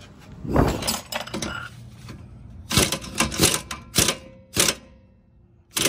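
Metal hand tools clanking against metal parts: a heavy clatter about half a second in, then a run of sharp separate metallic knocks roughly half a second apart.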